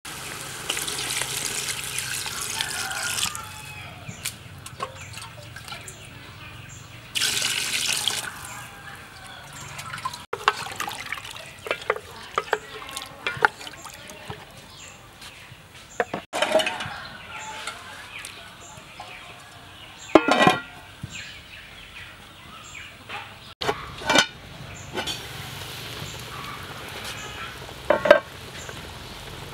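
Water poured into a metal cooking pot of chicken in two spells near the start, then a wooden spatula stirring the broth with scattered sharp knocks against the pot.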